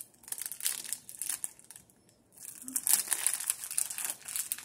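Foil blind-bag wrapper crinkling in a child's hands as he opens it. The crinkling comes in irregular bursts, with a short pause a little before halfway, and is louder in the second half.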